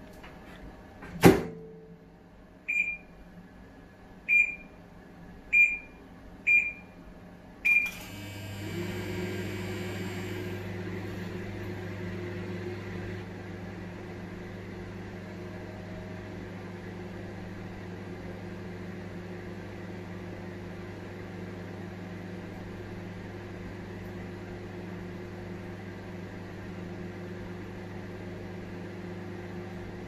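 Panasonic commercial microwave oven: the door is shut with a sharp clack about a second in, followed by five short beeps from the keypad. At about eight seconds the oven starts heating and runs with a steady hum and fan whir.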